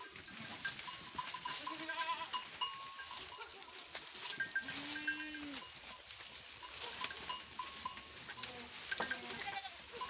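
Goats bleating several times while the herd feeds, the longest call about five seconds in, over the rustling and snapping of leafy fodder being pulled and chewed.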